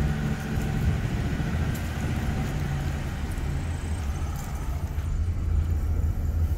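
Vehicle driving slowly, heard from inside the cab: a steady low engine and road hum, its pitch shifting lower about two seconds in.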